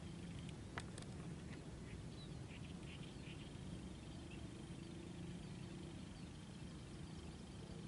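Faint outdoor ambience over open water: a steady low hum, a single sharp click just under a second in, and faint short high chirps from small birds around two to three seconds in.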